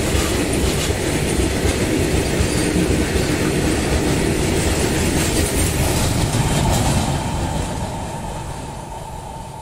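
Goods train of covered freight wagons rolling past close by, its wheels rumbling and clattering over the rail joints. The end of the train passes about seven seconds in and the rumble fades steadily as it moves away.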